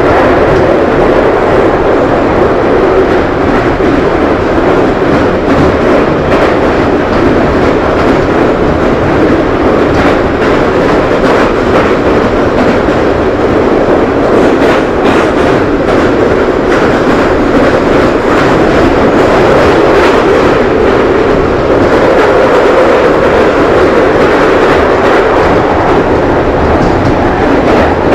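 Inside a London Underground 2009 Stock train running through a tunnel: a loud, steady rumble of wheels on rail, with faint clicks from rail joints in the middle of the run.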